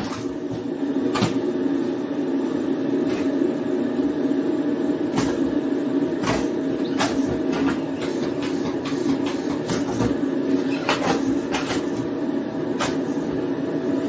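Vacuum cleaner running steadily, sucking latex gloves up through a narrow nozzle on its hose, with occasional sharp clicks.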